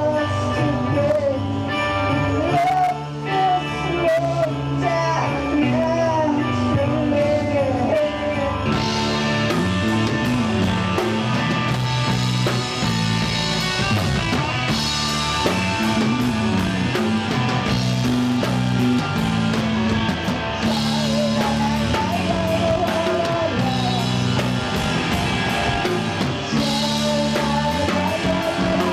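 Live rock band playing: bass guitar, keyboard and drum kit, with a singer's voice over them for the first eight seconds or so. The band then carries on without vocals, and the cymbals grow louder.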